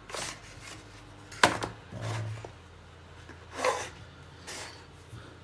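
Unpacking a portable SSD's retail packaging: the cardboard box is handled and the plastic insert tray is slid out, giving a few short scraping noises and one sharp click about a second and a half in.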